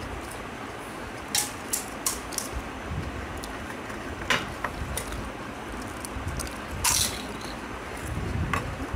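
Hollow, crisp golgappa (pani puri) shells being cracked open and eaten: a few scattered sharp crackles and clicks over a steady background noise.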